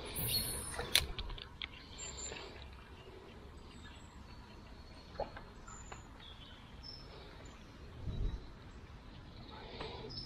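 Quiet outdoor ambience: a few sharp clicks in the first second or so, then low steady background noise with occasional short, faint, high bird chirps.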